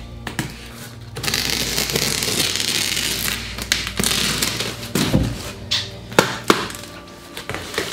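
Knife slitting the packing tape along the seam of a large cardboard carton: a scratchy tearing noise lasting about four seconds, followed by several sharp taps and knocks on the cardboard.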